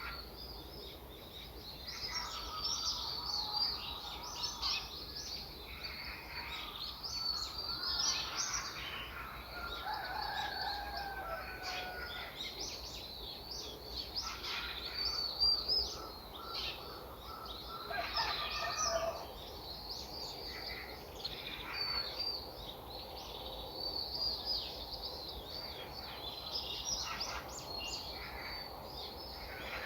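Songbirds chirping and singing with many short, overlapping calls throughout, and a few lower, drawn-out calls about a third of the way in and again past the middle.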